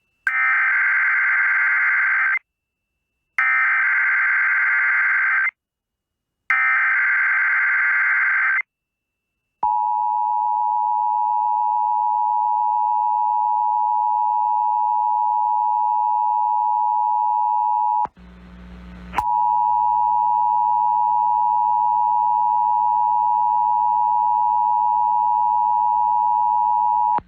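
Emergency Alert System SAME header: three bursts of digital data of about two seconds each, followed by the steady EAS attention tone for about eight seconds, signalling a tornado watch. The tone breaks off about 18 s in with a short stretch of noise and hum, then a second attention tone starts over a low hum.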